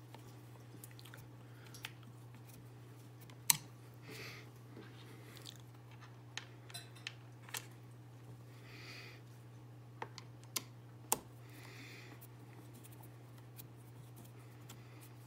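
Faint hand-assembly noises as bolts are threaded into an ice auger's plastic housing with a T-handle hex key: a few sharp clicks of metal on plastic, with light scraping and handling in between. A steady low hum runs underneath.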